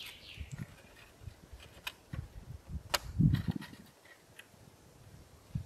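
Plastic cable ties and the hide's pole frame being handled: the end of a cable tie's quick ratcheting zip right at the start, then scattered sharp clicks and taps, with a louder click and a dull thump about three seconds in.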